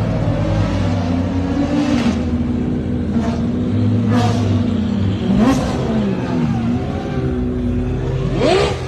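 Supercar engines, V12s among them, running at idle with short throttle blips; the engine pitch sweeps up briefly about halfway through and again sharply near the end.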